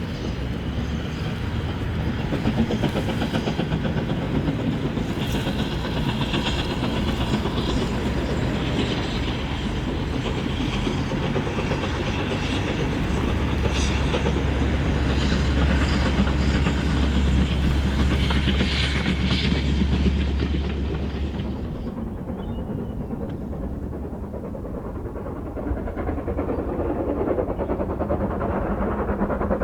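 GWR Prairie 2-6-2 tank steam locomotive 5526 running with a train of coaches, wheels on the rails. About two-thirds of the way through, the sharper, higher sound falls away and leaves a lower rumble, which builds again near the end.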